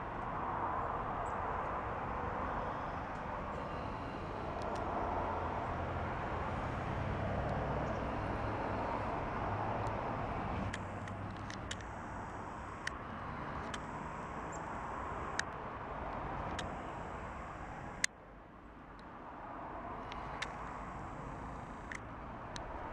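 Outdoor background rush rising and falling in slow swells, with a low hum underneath and scattered sharp clicks. A louder click comes about eighteen seconds in, after which the rush briefly drops and then builds again.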